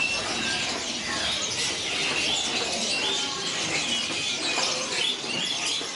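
Many caged songbirds chirping at once: a dense, steady chatter of short, overlapping high chirps and whistles.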